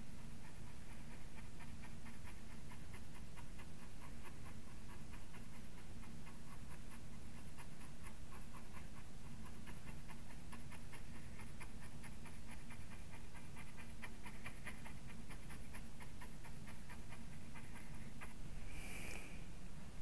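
Small brush dabbing acrylic paint onto hardboard in a rapid run of soft taps, stippling foam onto a wave crest, over a steady low hum. The tapping stops shortly before the end.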